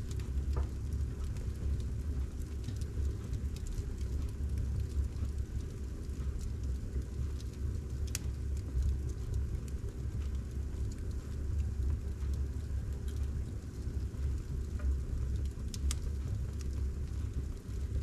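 Wood fire burning in a fireplace: a steady low rumble of the flames with scattered sharp crackles and pops from the burning logs, the clearest about 8 seconds in and again near 16 seconds.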